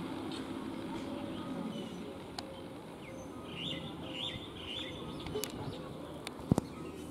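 A low steady hum from the standing EMU train fades out within the first two seconds. Then a bird chirps in three quick bursts around the middle, and a single sharp click comes near the end.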